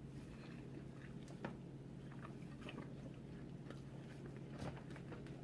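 A person eating close to the microphone: faint chewing with a few scattered small clicks, over a low steady hum.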